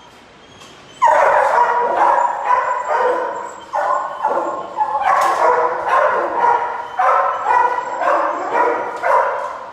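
Shelter dogs in their kennels barking, starting about a second in and carrying on without a break, several calls overlapping.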